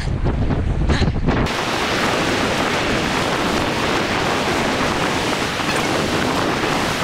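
Wind buffeting the microphone with a low rumble for the first second and a half, then a sudden change to the steady, even hiss of surf breaking on the shore.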